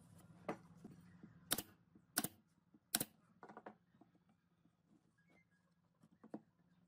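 Irregular sharp wooden clicks and knocks as a small pine slat frame is handled and shifted against a tabletop, about half a dozen in all, the loudest near the middle.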